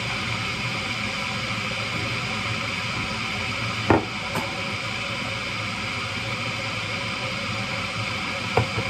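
Electric kettle heating up, a steady rushing noise. Two sharp knocks, about four seconds in and near the end, as things are set down on the counter.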